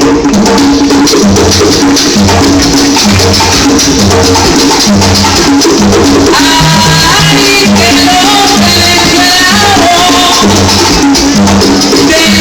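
Salsa band playing loudly and steadily: a repeating bass line with rhythmic percussion and melodic lines on top.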